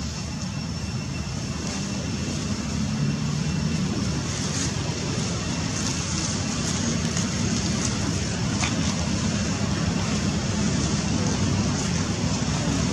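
Steady outdoor background noise: a low, even rumble with a faint high, steady whine above it.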